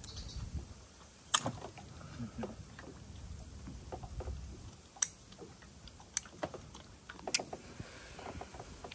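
Meal sounds: four sharp clicks or knocks a few seconds apart, with smaller ticks and handling noises between them, over a low rumble of wind on the microphone.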